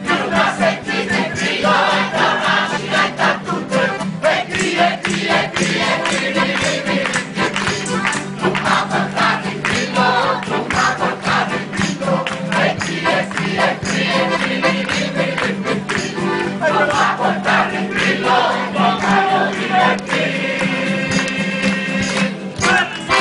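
A large mixed crowd of men and women singing a traditional Tuscan May song together, with acoustic guitars strumming and hands clapping along in rhythm.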